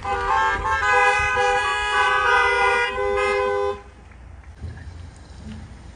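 Many car horns honking at once, several different pitches overlapping, for about four seconds, then stopping abruptly: cars honking as applause.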